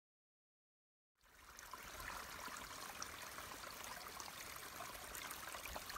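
About a second of dead silence, then a small woodland stream trickling, fading in and running steadily.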